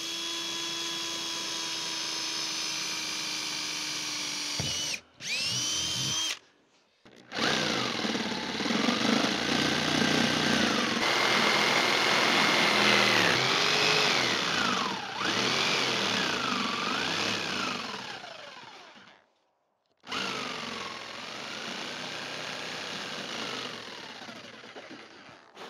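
Corded Black & Decker jigsaw cutting a hole in the plastic top of a water tank. The motor's pitch rises and falls as the blade loads up, and the sound cuts off suddenly twice.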